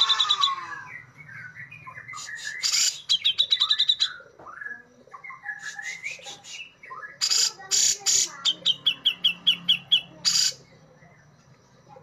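Grey-cheeked bulbul (cucak jenggot) singing: harsh, noisy bursts alternate with fast trills of short high notes and slurred whistled phrases. The song stops near the end.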